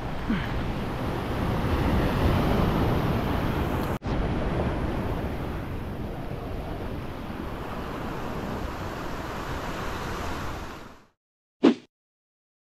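Surf washing over a rocky shore, with wind buffeting the microphone; it fades out about eleven seconds in. Near the end, one short, loud hit sounds once.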